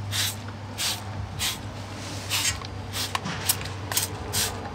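Wheel cleaner sprayed from a spray can onto an alloy wheel in short hissing bursts, about eight of them, roughly one every half second. A steady low hum runs underneath.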